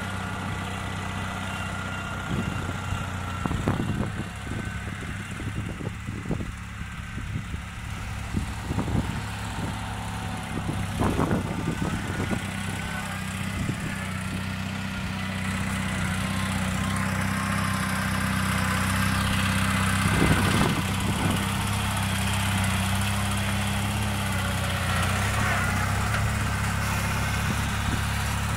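Garden tractor engine running steadily while clearing snow with a front loader, with a few sharp knocks and clunks. It gets somewhat louder about halfway through.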